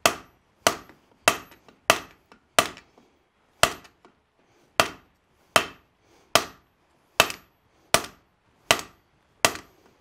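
Heavy diagonal peen hammer striking a red-hot steel axe blank on the anvil, about thirteen sharp blows at a steady pace of roughly one and a half a second, each with a short ring. The blows are drawing out and thinning the blade's ears at forging heat.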